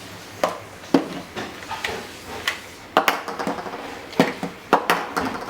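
A Nerf Zombie Strike Sledgefire toy blaster being handled, its hard plastic giving a run of irregular sharp clicks and knocks, about eight in all.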